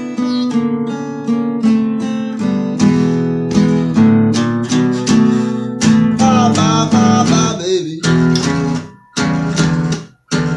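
Acoustic guitar playing a blues instrumental passage: picked notes over a repeating bass line, with wavering high notes around the middle and two brief stops near the end.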